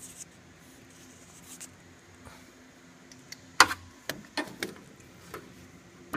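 A few light knocks and clicks over a faint steady low hum. The sharpest comes about three and a half seconds in, followed by a quick run of smaller ones.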